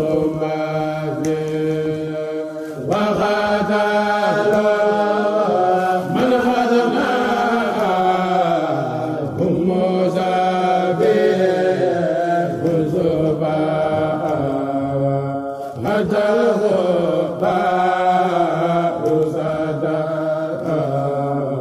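A man's solo voice chanting a Mouride khassida, unaccompanied, in long held and gliding melismatic lines. He breaks off briefly about three seconds in and again near sixteen seconds.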